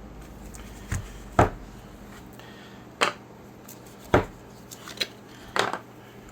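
Six hard knocks and clicks, about one a second, as a coticule razor hone is handled and turned against a hard surface.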